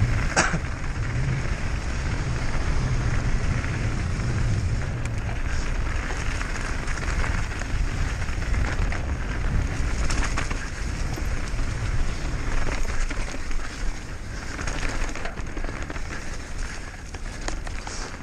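Mountain bike descending at speed over rough trail: tyres and frame rattling continuously, with scattered sharp knocks from impacts and a steady rumble of wind on the microphone.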